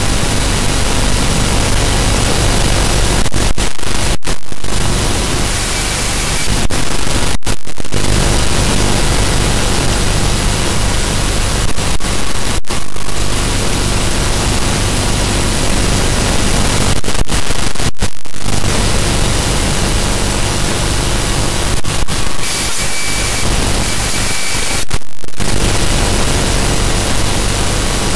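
Loud steady static hiss with a low electrical hum underneath, cutting out briefly several times.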